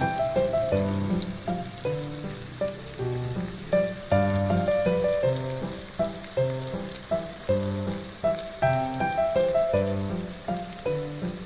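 Background music, short melody notes over a repeating bass line, with a steady sizzle beneath from a pan of okra and chicken.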